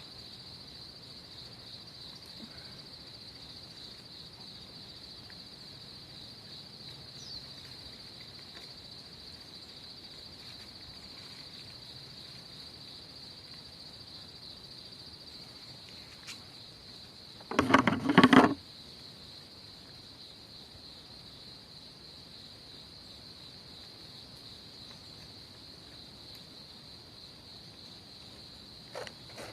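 Insects chirring steadily in one continuous high-pitched trill. A little past halfway comes one loud, rapid clattering rattle lasting about a second.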